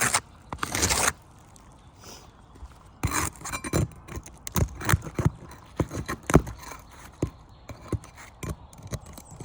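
Brittle roof shingles being pried apart to break their seal: short scrapes, then an irregular run of sharp cracks and clicks from a few seconds in, the shingles cracking and getting damaged as they come loose.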